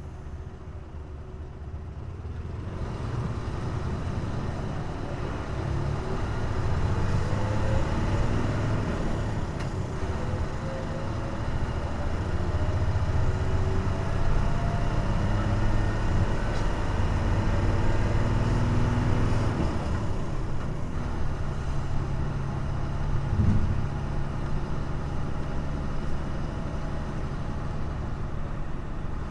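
Hino Blue Ribbon city bus's diesel engine heard from inside the bus, revved hard up a steep hill: the engine note climbs and is held high near the red zone because the underpowered bus is in a low gear. The sound dips briefly about twenty seconds in, then carries on steadily.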